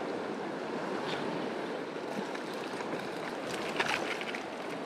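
River current rushing and lapping close by, with a few brief splashes near the end.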